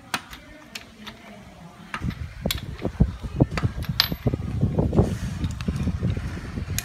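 A TCM forklift's Isuzu C240 four-cylinder diesel engine starts up about two seconds in and runs with a dense, irregular clatter.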